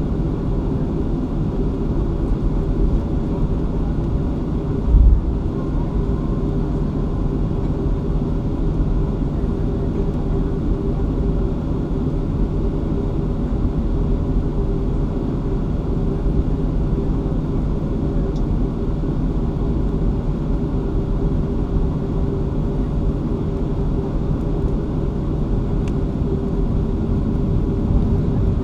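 Cabin noise of a Boeing 737-500 taxiing: its CFM56 engines hum steadily at idle over a low rumble from the rolling aircraft. A single low thump comes about five seconds in.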